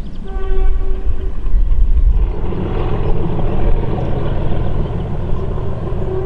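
Train horn sounding one short low note of about a second, followed by the steady rumble of the train running; a second low note starts right at the end, the first half of a two-tone horn.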